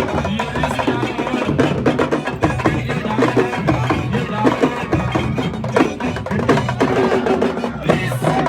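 Music driven by busy, rapid percussion: many sharp, wood-block-like hits over a low, steady backing.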